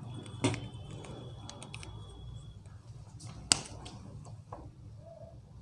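A whiteboard marker being handled, giving a few sharp clicks and light taps. The two clearest come about half a second in and about three and a half seconds in, over a low steady hum.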